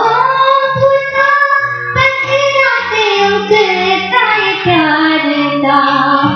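A woman singing a melodic Hindi film song line with long, gliding held notes, over a backing track with a repeating bass and drum pattern.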